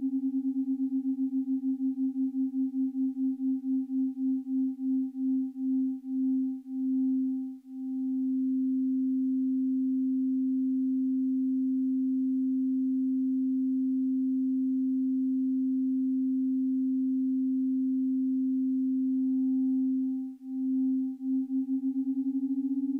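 Electronically generated pure sine tone, low and steady, with a faint higher overtone above it. It pulses in beats that slow from several a second to about one a second and stop about eight seconds in, then hold steady until the beats return and quicken near the end.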